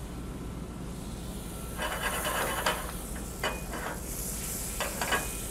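Butter sizzling and hissing as it melts in an oven-hot skillet, with a few short louder spurts; the sizzle is the sign of a really hot pan.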